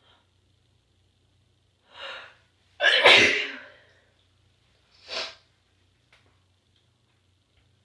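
A woman sneezing once, loudly: a sharp intake of breath, then the sneeze just under three seconds in, trailing off over about a second, followed by a shorter breath about two seconds later.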